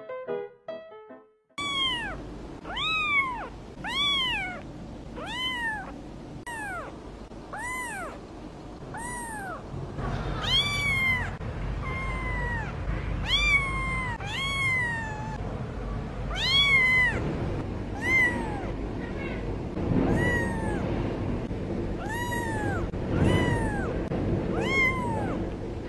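A young kitten mewing over and over: about twenty high, thin calls, each rising and then falling in pitch, roughly one a second.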